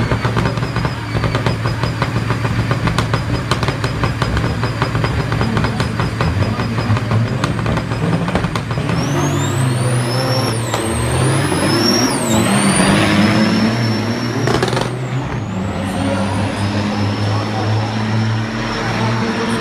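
Semi-truck diesel engines pulling loaded trailers and accelerating hard. A dense, pulsing engine note gives way to a high turbo whistle that climbs and drops back at each gear change, with a short burst of noise about fifteen seconds in.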